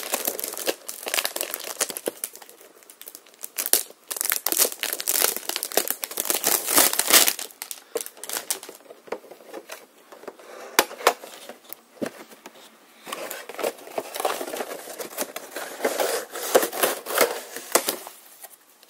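Packaging of a boxed prize figure crinkling and tearing as it is opened and the parts are pulled out, in irregular clusters of crackles with a quieter stretch about halfway through.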